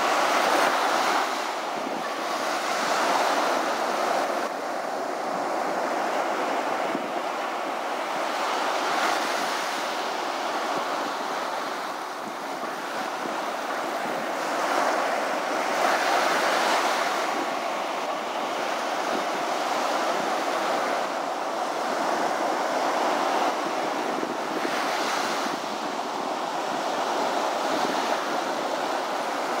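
Ocean surf breaking on the beach, mixed with wind; the wash swells and eases every few seconds.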